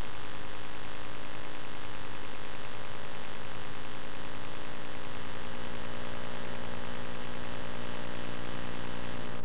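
A steady electrical-sounding hum with many fixed tones over a hiss, unchanging in level.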